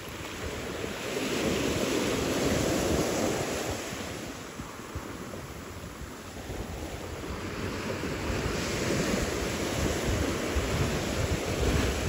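Ocean surf washing in, swelling about a second in, easing past the middle and building again near the end, with wind rumbling on the microphone.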